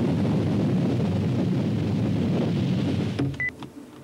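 A loud, steady low rumble that cuts off about three seconds in. A click and a single short high beep from an electronic door keypad follow as a key is pressed.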